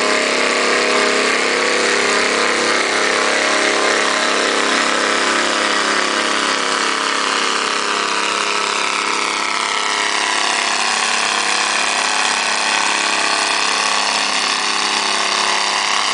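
Antique tractor engine running hard under load as it drags a weighted pulling sled down a dirt track. The engine note sags in pitch partway through and climbs back near the end.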